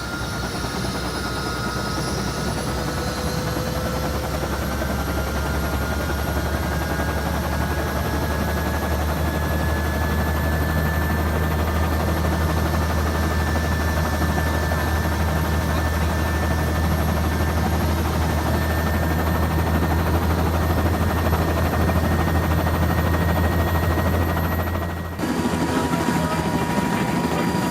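Helicopter running steadily: a deep drone with a thin whine that rises slowly in pitch, and an abrupt change in the sound about 25 seconds in.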